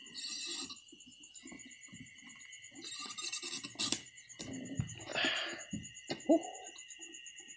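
Hands prying and handling a plastic motorcycle headlight housing: scattered clicks, knocks and plastic rustles, with one sharp click that has a brief ring a little after six seconds in. A steady, pulsing high chirr of night insects runs behind.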